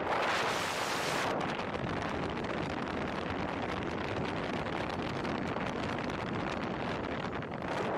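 Wind buffeting the microphone of a camera mounted outside a moving car, over steady road and tyre noise. It is hissiest in the first second or so, then settles to an even rush.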